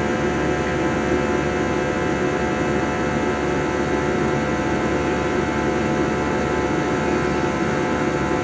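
Steady cabin drone of an airliner in flight: the even rush of engine and airflow noise with a constant hum of several steady tones.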